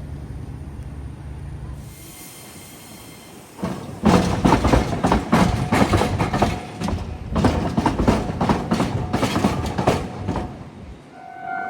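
Iyo Railway train passing close by, its wheels clattering over the rail joints in repeated groups for about six seconds after a low hum. Near the end the clatter fades and a steady ringing tone begins.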